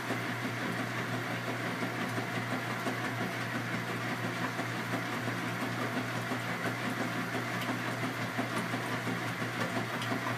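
Washing machine running: a steady motor hum under an even churning noise that pulses quickly in loudness.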